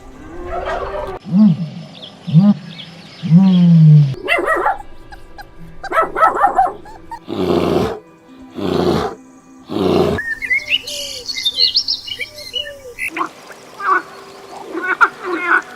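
A run of different animal calls one after another: three low calls in the first few seconds, a few loud, rough calls around the middle, and high bird chirps about ten seconds in.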